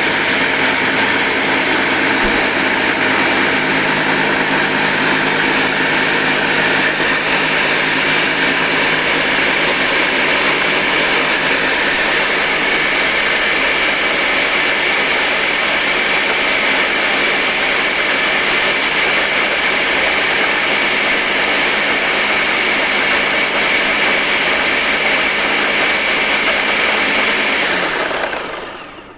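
Ninja Smart Screen Blender's food processor bowl running steadily on high, whirring as it emulsifies egg, mustard and slowly added oil into mayonnaise. The motor winds down and stops about a second before the end.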